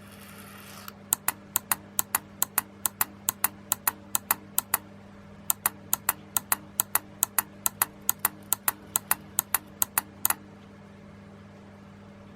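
Relays of a model-railway car retarder clicking rapidly, about five sharp clicks a second, in two runs with a short pause between, as they drive the retarder mechanism. A low steady hum runs underneath.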